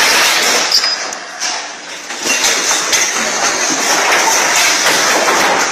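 Chairs and tables sliding and scraping across a hard tiled floor, with scattered knocks as the furniture shifts and bumps together.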